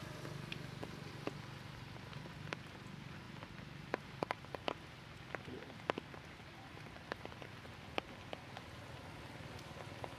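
Water drops falling from the trees after rain, landing as scattered, irregular sharp ticks on leaves and wet ground, a few every second, over a faint steady low hum.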